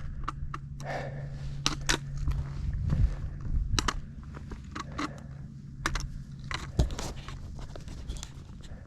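Irregular crunching, scraping and snapping of brush and twigs as someone pushes on foot through dense undergrowth, with a low steady hum during the first few seconds.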